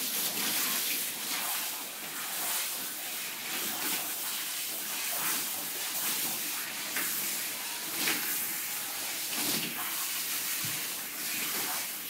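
Hand-held grooming shower head spraying water onto a dog's wet coat in a grooming tub: a steady hiss of spray and splashing that rises and falls a little as the spray moves over the body.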